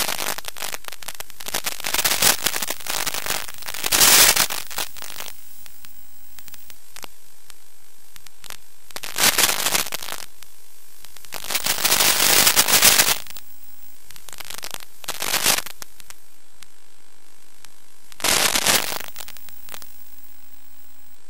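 Crackling radio static from an analogue FPV video receiver: a steady hiss broken by several loud, crackling surges about a second long, the sign of the video link breaking up.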